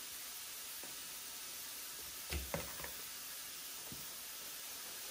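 Burger patty sizzling in a hot skillet, a steady hiss. A few short knocks about two and a half seconds in.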